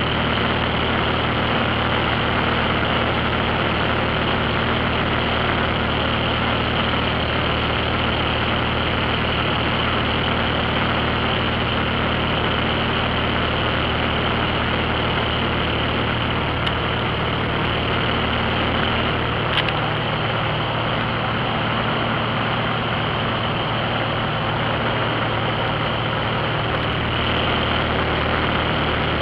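Light propeller airplane's piston engine and propeller droning steadily in flight, heard from inside the cabin along with the rush of airflow.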